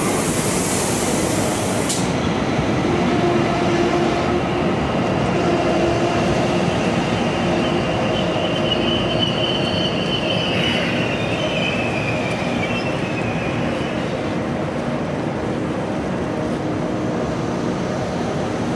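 ICE high-speed train rolling slowly along a station platform: a steady rumble with a loud hiss for the first two seconds that cuts off sharply, then high wheel squeal that wavers and slides down slightly through the middle stretch.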